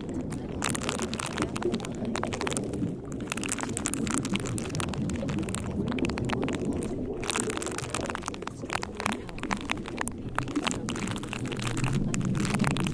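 Steady rain-like patter with many small crackles, a dense noise bed with no speech or melody.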